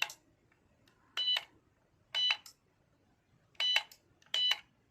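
Short, high-pitched electronic beeps from a refrigerator control board's buzzer while the board is bench-tested. There are five beeps about a second apart, slightly unevenly spaced.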